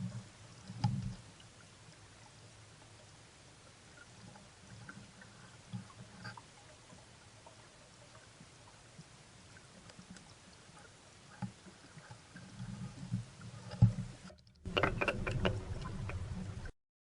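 Quiet water sounds with scattered soft knocks, then a louder, busier stretch of water noise and knocks near the end that cuts off suddenly.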